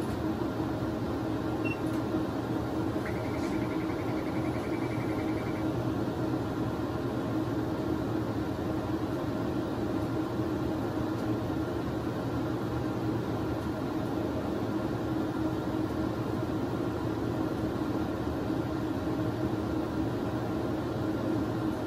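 Steady hum and hiss of equipment and ventilation in a CT scanner control room, with a short run of rapid high beeps about three seconds in.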